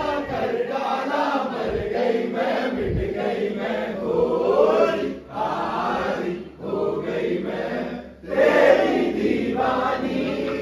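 A group of people singing together loudly in a lively sing-along, one man's voice leading. There are short breaks between the sung lines.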